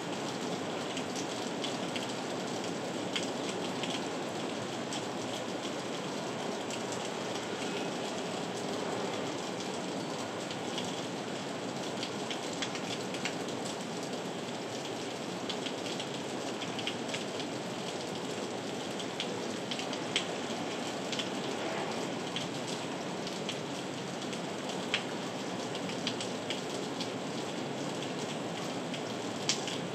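Heavy rain falling steadily: a dense, even hiss with many sharp drop hits scattered through it.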